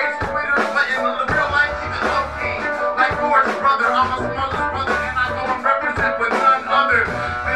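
Live band music with a low bass line and guitar.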